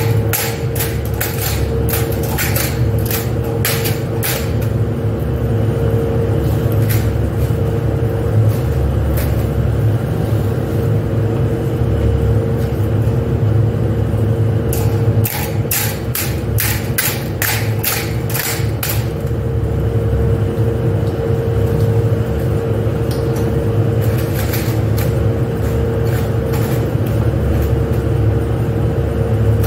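Steady factory machinery hum, a constant rumble with one held tone over it. On top come runs of sharp metallic clinks as long profiles are hung on metal hanger racks: a cluster soon after the start, a longer one around the middle, and a few more near the end.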